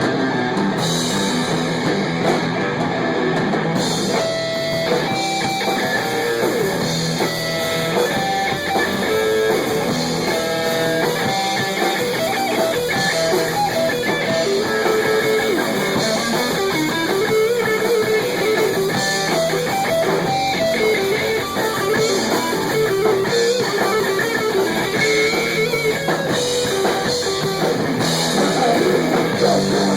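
A rock band rehearsing: guitar playing steadily with drums, no vocals.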